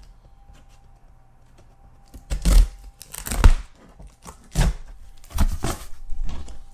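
Packing tape on a cardboard box being slit with scissors and the cardboard flaps pulled apart. After a quiet first two seconds come about five short tearing, scraping bursts.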